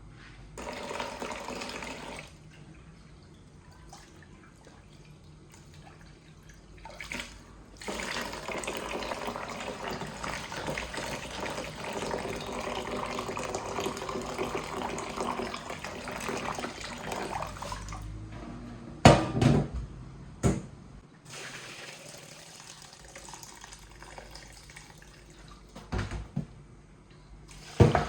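Tap water running into a sink, a short run near the start and then a steady stream for about ten seconds. Afterwards come a few loud, sharp knocks.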